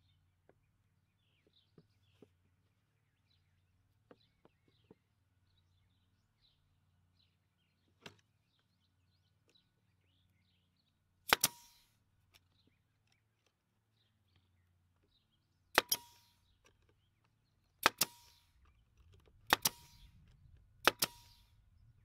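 Brad nail gun firing nails into plywood birdhouse panels: a quick pair of sharp shots about eleven seconds in, another pair about four seconds later, then three single shots a second and a half apart, each followed by a short ringing tone.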